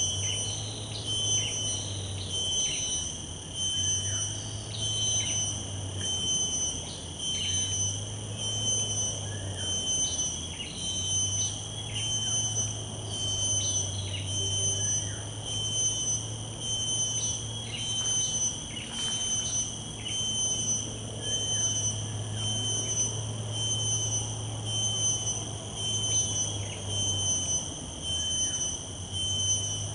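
A steady, high-pitched insect whine that pulses slightly, with short falling chirps every second or two on top and a low hum that comes and goes.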